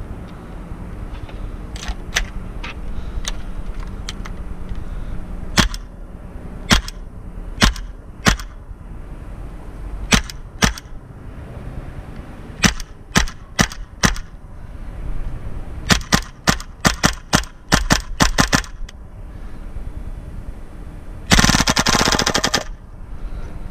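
VFC MP7 gas blowback airsoft gun, gas-fed through a Dominator D.G.I hose, firing single shots with the bolt cycling at uneven intervals. A quicker string of shots follows about two-thirds of the way through, and a full-auto burst of about a second comes near the end.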